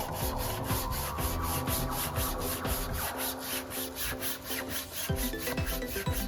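Background music with a steady beat and sustained notes that change every half second or so.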